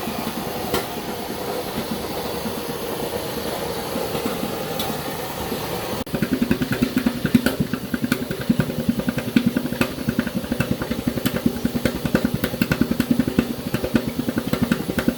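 Tofu batter cooking machine running: a steady mechanical hum with a hiss for about six seconds. Then it changes abruptly to a fast, even chugging rhythm.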